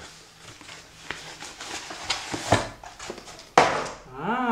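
Amazon cardboard book-wrap package being handled and torn open: scattered crinkling and rustling, with a loud sharp tear about three and a half seconds in. Near the end, a short pitched sound that rises and then falls.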